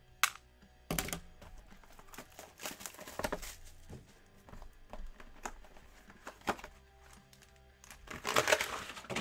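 Sealed trading-card boxes being shuffled and set down on a table, with scattered knocks and clicks, then a burst of crinkling plastic near the end as the shrink wrap on one box is torn open.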